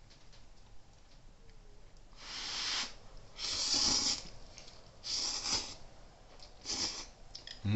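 A person slurping hot ramen noodles from a bowl: four hissing slurps, the first about two seconds in, roughly a second apart.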